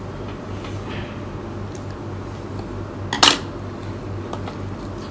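One sharp knock, like a dish or utensil being set down, about three seconds in, over a steady low hum, with a few faint ticks.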